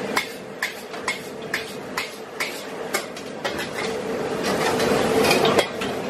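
A metal spatula clanks and scrapes against a steel wok as pad thai noodles are stir-fried, about two strikes a second, over a steady sizzle and burner hiss. In the second half the frying grows louder, and a sharper clank comes near the end.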